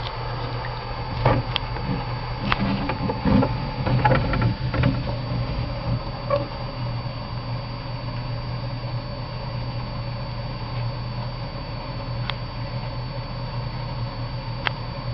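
Steady low hum with a faint high whine above it. Scattered clicks and light knocks come in the first five seconds, and a single click comes near the end.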